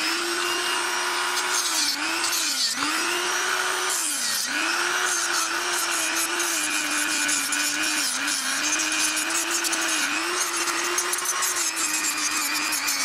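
Handheld rotary tool running at high speed, cutting away plastic. Its steady whine sags in pitch several times, around three, four, eight and ten seconds in, as the bit bites into the plastic and loads the motor.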